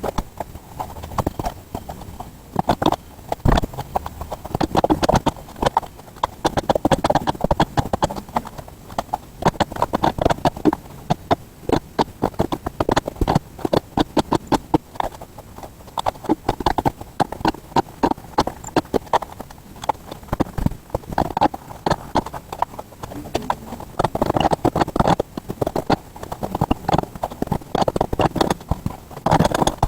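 Bench vise being worked shut on a motorcycle tire's sidewall at the rim edge to break the bead loose: a long run of irregular clicks and knocks.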